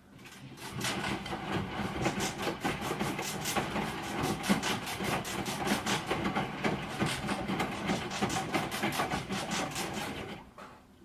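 Broken washing machine running: a fast, even rattling knock, about six beats a second, that starts up, runs for about ten seconds and then dies away.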